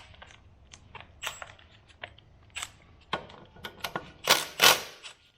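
Hand tools and parts being handled in a car's engine bay: scattered light clicks and clinks, then two louder scraping rustles near the end.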